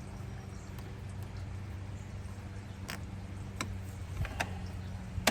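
A few sharp clicks and knocks from hard parts being handled, coming about three seconds in and spaced roughly a second apart, with the loudest right at the end, over a steady low hum.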